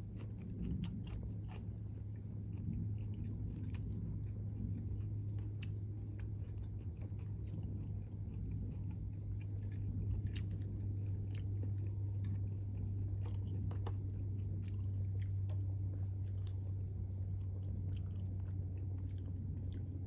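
A person chewing and biting food close to the microphone, with scattered short crackles from a log fire over a steady low hum.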